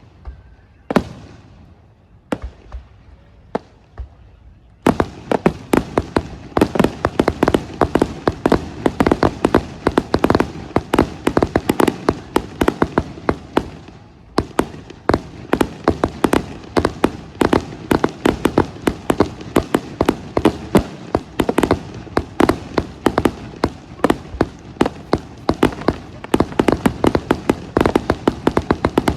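Fireworks going off: a few separate bangs at first, then, about five seconds in, a dense rapid crackle of many overlapping bangs that keeps up.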